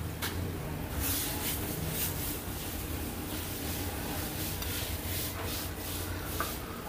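Irregular soft rubbing and scratching noises, roughly every half second, over a steady low hum.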